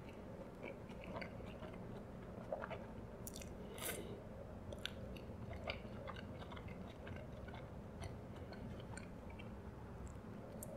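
Close-miked chewing of a mouthful of burger: soft wet mouth smacks and small clicks, a few louder about three to six seconds in.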